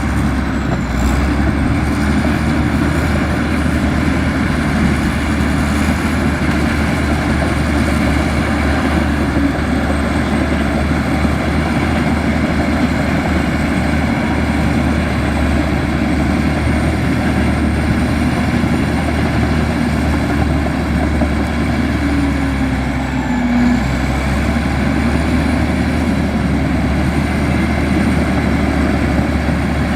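Komatsu bulldozer's diesel engine running steadily under load, with a faint high whine that wavers slowly in pitch.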